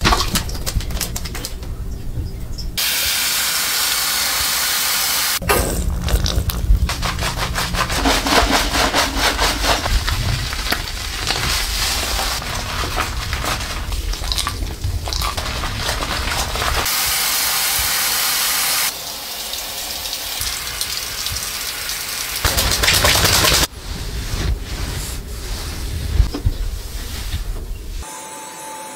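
Shower spray hissing on a dog's wet coat, in short clips that cut in and out abruptly.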